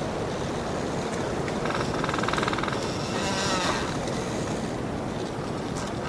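Wind blowing steadily through large trees, with their wood creaking: a drawn-out creak about two seconds in, and a creak that bends in pitch around three and a half seconds in.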